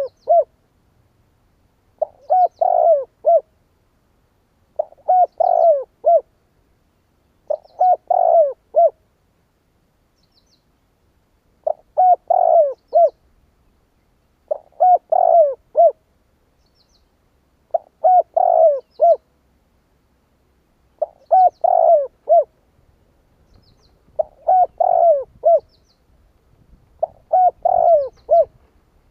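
Spotted dove cooing: a male's short phrase of several notes, repeated about every three seconds, the kind of call used as a lure to provoke wild doves.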